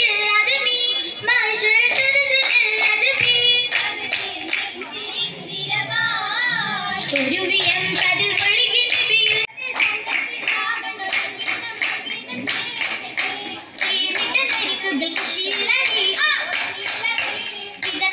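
Oppana performance: voices singing a Mappila song while the dancers clap their hands in rhythm, with sharp claps running through the singing.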